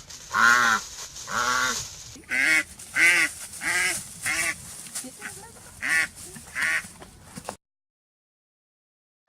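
A duck quacking repeatedly, about eight loud calls spaced half a second to a second apart, then the sound cuts off to silence about three quarters of the way through.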